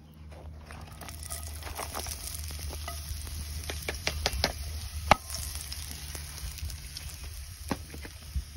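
Hand-cut potato fries sizzling as they drop into hot oil in a cast-iron skillet, a steady hiss with many sharp pops and crackles, the loudest pop about five seconds in.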